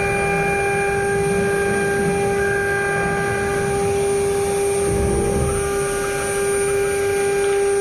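CNC router spindle whining steadily as its bit cuts through an aluminium composite panel, over an uneven low rumble.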